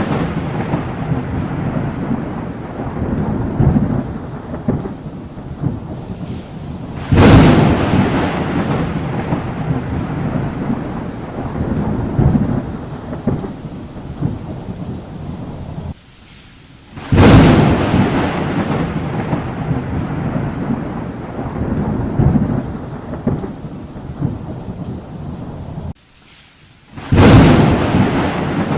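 Thunderstorm: thunder claps over steady rain. Three sudden loud strikes come about ten seconds apart, each trailing off into a long low rumble, and the second and third are each preceded by a brief drop to quiet.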